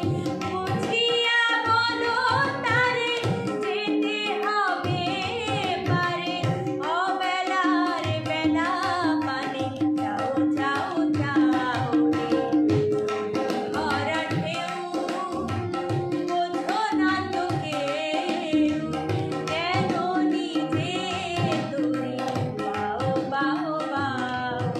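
A woman singing a Bengali song, with a hand drum such as tabla keeping time and steady held notes underneath the melody.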